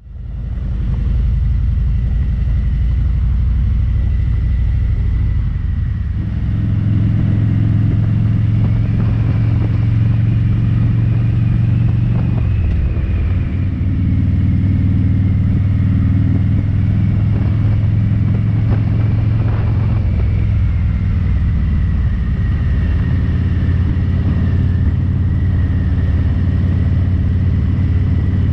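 Harley-Davidson Road King Special's V-twin engine running steadily under way, heard from the rider's seat. The engine note steps up about six seconds in and dips and recovers briefly around twelve to fourteen seconds in.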